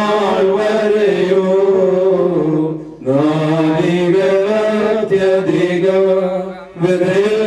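Male clergy chanting a funeral hymn together, sung in long sustained phrases with short breath breaks about three seconds in and near the end.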